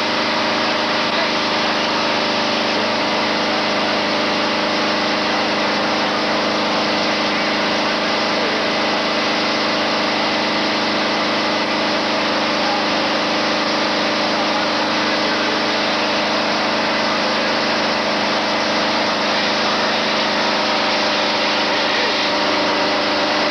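A fire engine's motor running steadily at the fire scene, a constant drone with an even hiss over it. The pitch and level hold unchanged, with no revving.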